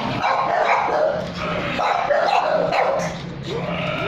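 Dogs barking and yipping repeatedly.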